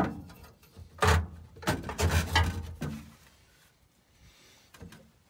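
A few short knocks and scrapes, the loudest about a second in and more around two and three seconds, then only faint background noise.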